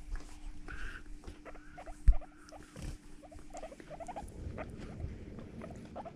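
Guinea pigs making many short, soft squeaks as they move about close to the microphone, with a single knock about two seconds in.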